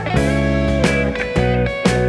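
Background music: a guitar-led instrumental track.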